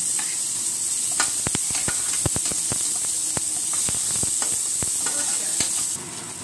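Sliced onions and curry leaves sizzling in hot oil in a stainless steel pan, with a spoon clicking and scraping against the pan as they are stirred.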